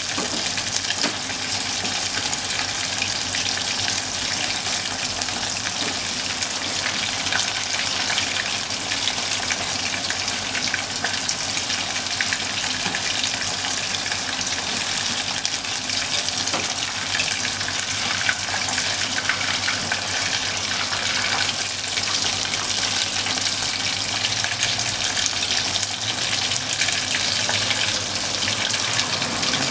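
Hot oil sizzling steadily as bone-in beef short ribs deep-fry in a small copper pot.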